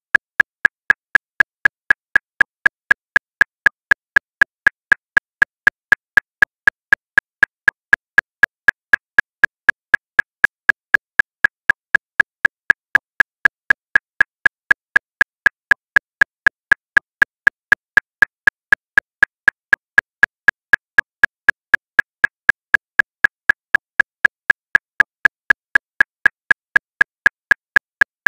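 Metronome clicking steadily at 239 beats per minute: short, high, even clicks, about four a second, all alike and unaccented.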